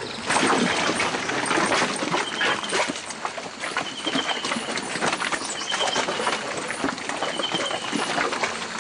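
Elephants' feet treading through wet mud and broken bamboo and branches, with dense crackling and snapping of the debris underfoot.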